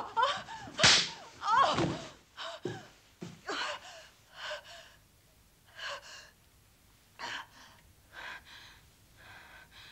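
A woman gasping and crying out in a scuffle, with a sharp smack about a second in. Then ragged breaths come further apart and fade.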